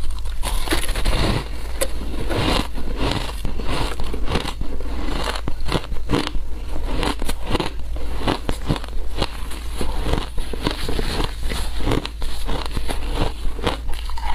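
Close-miked crunching of frozen matcha-coated ice chunks being bitten and chewed: a dense, irregular run of sharp cracks with no pause.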